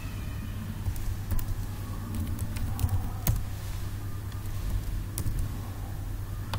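A handful of sharp, irregular computer keyboard and mouse clicks over a steady low hum.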